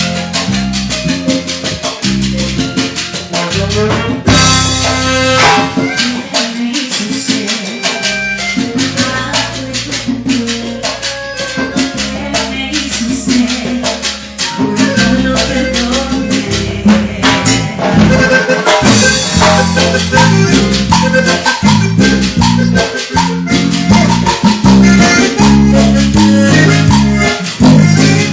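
Live band playing an instrumental cumbia passage, with drum kit and hand percussion keeping a steady dance rhythm and a bright cymbal crash about four seconds in.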